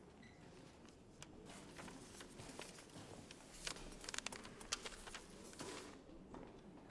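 Quiet room tone with scattered faint rustles and small clicks, such as people shifting on metal folding chairs. The clicks come thickest from about three and a half to five seconds in.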